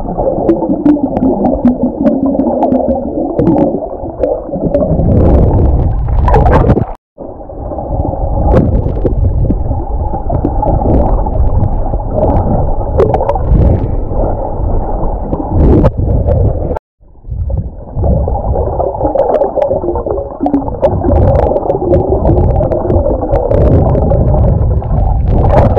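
Underwater water noise picked up by a submerged camera: a loud, dull rumbling and gurgling of water moving around it, with scattered sharp clicks. The sound breaks off to silence twice, about seven and seventeen seconds in.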